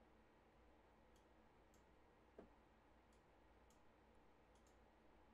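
Near silence: room tone with faint computer mouse clicks scattered through, and one brief soft thump about two and a half seconds in.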